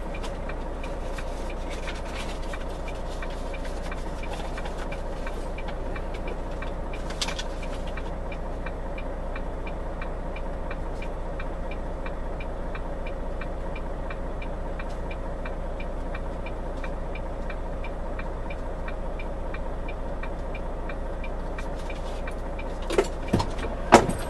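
Stationary car's engine idling steadily, with a soft, evenly spaced ticking running over it. A few sharp clicks near the end.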